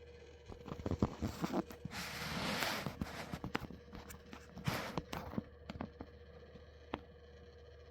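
A series of irregular sharp clicks and knocks, with a brief rustling noise about two seconds in and a last single click near the end, over a steady low hum.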